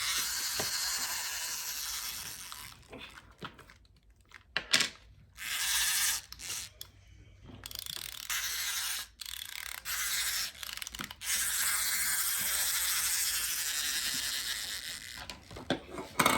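Small plastic wind-up toy mixer's spring-driven gears and ratchet running in several stretches of a few seconds each, with short breaks between.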